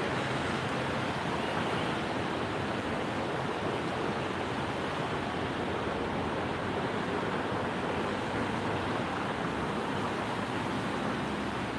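Steady rushing hiss of car traffic on a wet street, with tyres swishing through water.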